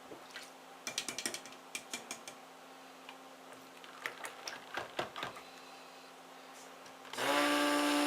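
Scattered light clicks and taps of utensils and containers, then about seven seconds in a stick blender switches on and runs with a loud steady hum, blending the cold-process soap batter.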